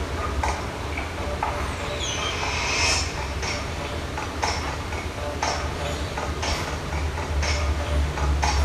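Stage soundtrack: a deep droning bass with a sparse ticking beat, sharp clicks roughly once a second, and a brief brighter swell near the middle.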